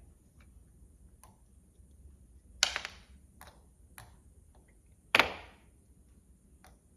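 Steel hand tool clicking against a magnet as it is pushed in and pulled out to magnetize it: two sharp metallic clacks about two and a half seconds apart, with light ticks between.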